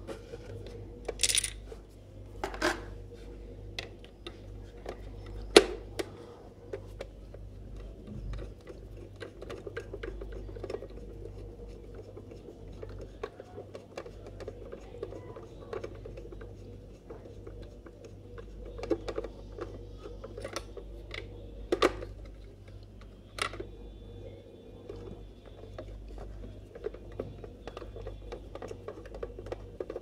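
Irregular light clicks and knocks of hard plastic being handled and pressed together: the shell halves of a handheld vacuum cleaner's housing, with a few sharper clicks standing out.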